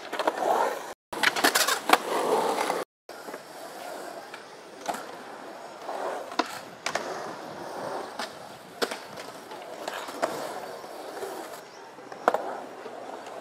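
Skateboard wheels rolling over a concrete bowl, with about ten sharp clacks of the board and trucks knocking against the coping and landing. Two short gaps break the sound about one and three seconds in.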